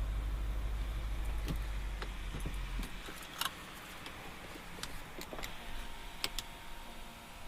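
Audi RS6's 4.0 twin-turbo V8 idling low heard from inside the cabin, then cutting off about three seconds in as the engine is switched off. A scattering of sharp clicks and ticks follows.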